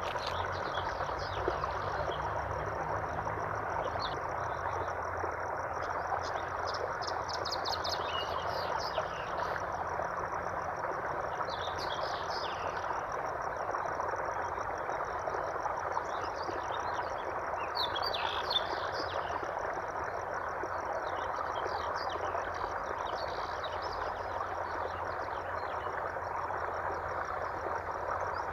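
Steady rush of flowing water, with birds chirping in short clusters over it and a continuous high, fast trill of frogs or insects.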